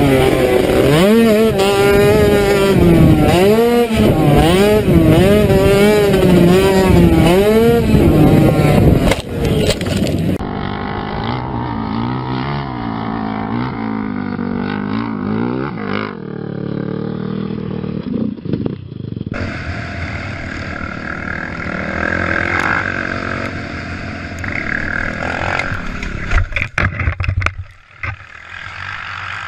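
Quad bike (ATV) engines heard across a run of short clips. The first engine revs up and down again and again for about ten seconds, then other quads run more quietly, with abrupt cuts between the clips.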